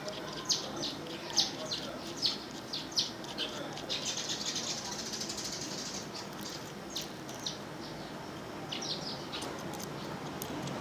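Small birds chirping: short high chirps repeated about once or twice a second, with a brief buzzy trill about four seconds in, over a low steady background hum.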